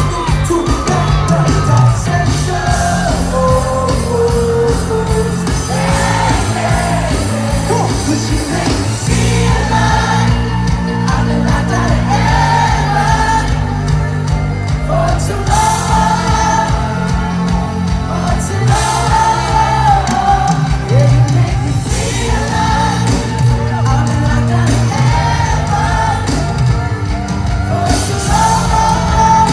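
Live band music with lead and backing singing over a steady bass groove, heard from inside the audience, with some shouting from the crowd.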